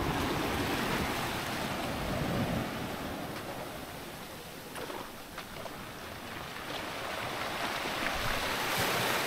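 Small surf breaking and washing up the beach around a grounded sailboat's hull, a steady rush that swells, eases off in the middle and builds again near the end, with wind on the microphone.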